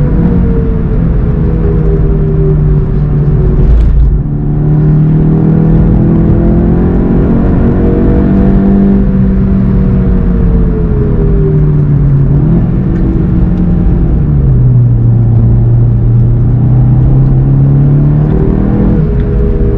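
A 2019 VW Golf 7 GTI TCR's turbocharged four-cylinder engine with DSG gearbox, heard from inside the cabin at speed. Its pitch falls and rises with the throttle and gear changes, with a short crack and a break in the note about four seconds in, a step down around twelve seconds and a jump in revs near the end.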